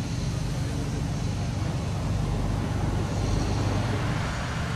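Steady low engine rumble under a wash of outdoor noise.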